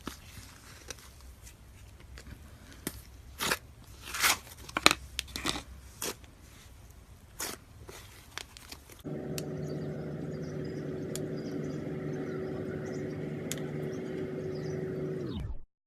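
Crunchy slime being squeezed and pressed, giving irregular sharp crackles and pops. About nine seconds in it gives way to a steady low hum with a held tone, which cuts off abruptly just before the end.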